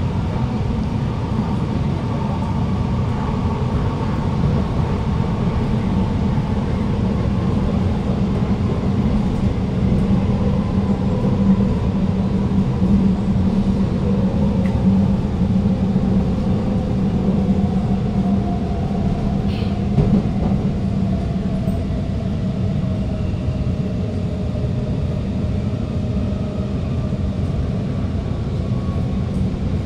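Alstom Movia R151 metro train heard from inside the carriage while running: a steady rumble of wheels on track, with a faint motor whine that slowly falls in pitch.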